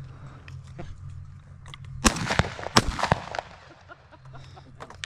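A quick volley of about four 12-gauge shotgun shots at flying doves, each a sharp crack, fired within a little over a second about two seconds in.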